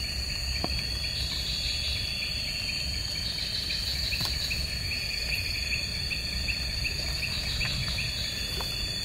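Night insect chorus: one insect holds a steady, high-pitched trill while another chirps in quick repeated pulses from about two seconds in, over a low background hum.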